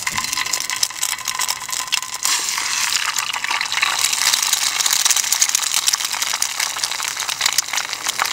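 Hot oil crackling and sizzling in a small frying pan over a gas stove. An egg is cracked into the pan about two seconds in, and the sizzle grows louder.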